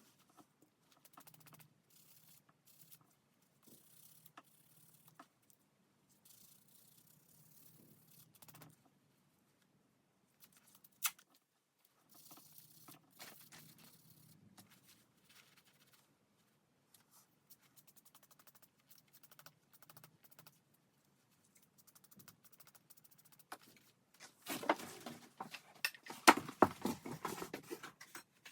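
Faint clicks and rustles of small parts being handled on a workbench, with one sharper click about 11 seconds in. Near the end comes a run of quick rubbing strokes of hand abrading on the knife's brass and wood.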